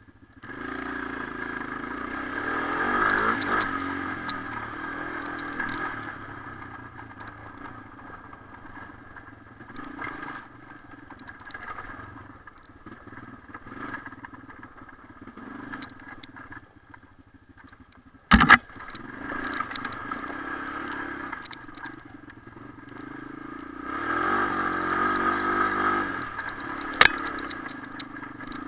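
Honda TRX250 ATV engine revving up in the first few seconds, dropping to a quieter low run for a long stretch, then revving again near the end. A sharp loud knock about two thirds of the way through, and a shorter crack near the end.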